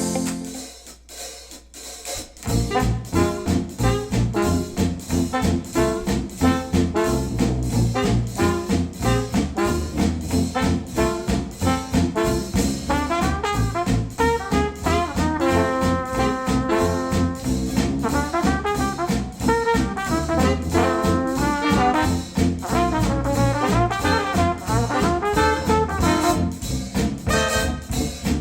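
Jazzy brass-led instrumental music with a steady drum beat, played back through Wharfedale Denton 80th bookshelf speakers driven by a NAD C 338 integrated amplifier. It comes in at full level about two seconds in, after a short quiet gap between tracks.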